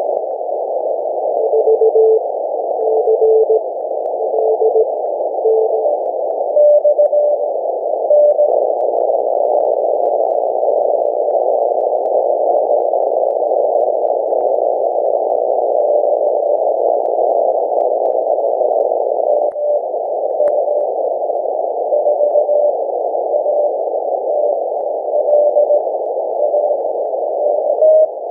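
Flex 5000A receiver audio on the 6 m band through a narrow filter: a steady rushing noise with short keyed tones of Morse code, first at a lower pitch and then, from about seven seconds in, at a slightly higher pitch. The noise is the heavy power line noise on the band.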